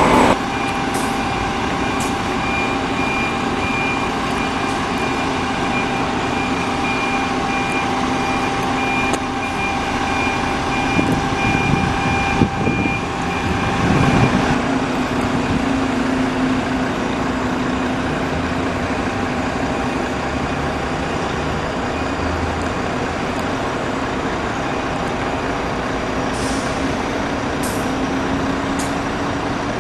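Diesel buses running at a bus station, a steady engine hum throughout. A fast, repeated high beep sounds through the first half, and near the end a bus engine grows louder as it approaches.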